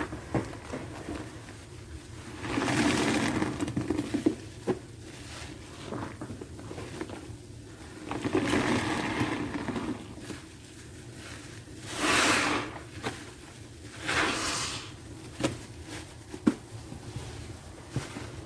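A wet, soapy sponge squeezed by hand four times, squelching and squirting sudsy liquid, with small wet clicks and drips in between.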